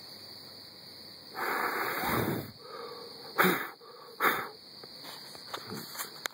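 A person breathing close to the microphone: one longer exhale, then two short sharp breaths a second apart, over steady chirring of crickets.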